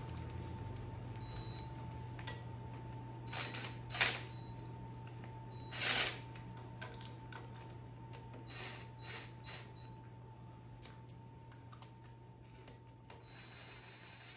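Scattered metallic clicks and clanks of a hand wrench turning a harmonic balancer puller on the crankshaft damper of a Chevy LT1 small-block. The louder clanks come about four and six seconds in, with a quick run of clicks around nine seconds, all over a steady low hum.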